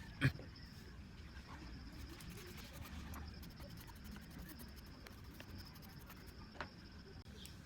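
Small handling noises: a sharp click about a quarter second in, another click near the end and faint scratches and taps between, over a steady low hum and a thin high whine.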